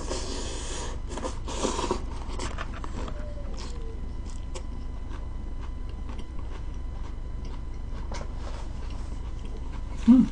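Close-up chewing of a mouthful of crisp leafy sprout salad, crunching loudest in the first two seconds, then quieter chewing with scattered small clicks. A short, loud, low sound comes just before the end.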